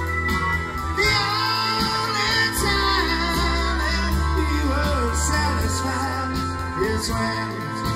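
Live rock band playing through a PA: lead vocal over electric guitar, keyboards, bass and drums.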